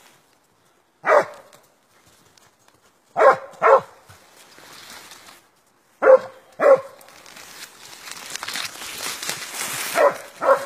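Barak hound barking: a single bark, then three pairs of loud barks a few seconds apart, with softer rustling between the later ones.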